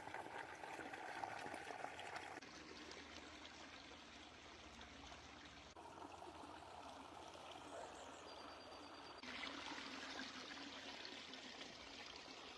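Faint, subtle sound of water running and gurgling down a garden pond's rocky stream and small waterfalls. The water sound shifts abruptly about two and a half, six and nine seconds in.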